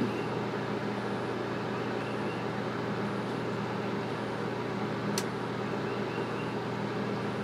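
Steady low electrical hum from a Lee lead melting pot's heating element held at temperature by a PID controller, with one sharp click about five seconds in.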